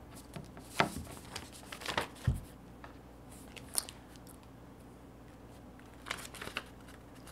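Sheets of paper rustling and crinkling as they are picked up and handled, in short scattered bursts, with a dull knock about two seconds in.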